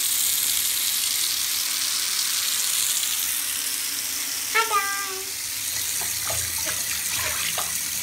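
Bathtub filling from the tap, water running steadily into the tub. A brief high-pitched voice cuts in about halfway through.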